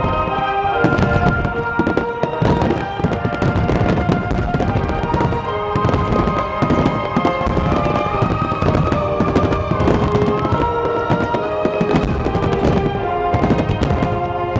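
Fireworks bursting and crackling in rapid, continuous volleys, over music with long held notes.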